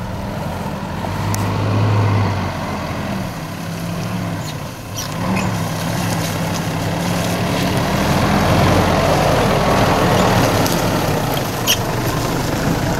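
SsangYong Musso SUV's engine running at low revs as it crawls down a steep off-road track, its pitch stepping up and down. A rushing noise of tyres and brush swells as it comes close, near the end, with a few sharp clicks along the way.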